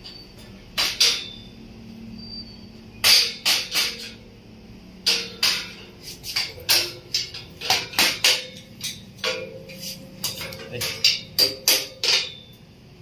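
A hammer tapping a stainless steel window grill into place: about twenty sharp strikes in uneven clusters, the metal ringing briefly after some of them.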